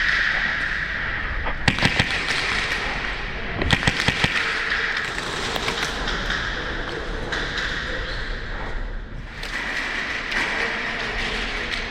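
Airsoft guns firing two quick volleys of sharp shots, the first about two seconds in and the second about four seconds in, over a steady hiss.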